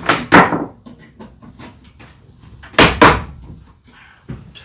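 Sharp knocks and bangs: a loud double knock at the start and another about three seconds in, with lighter tapping and clatter between.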